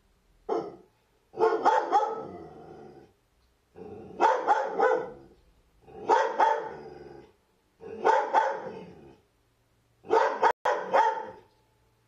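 Dog barking in repeated volleys of two or three sharp barks, about one volley every two seconds, each trailing off before a short pause.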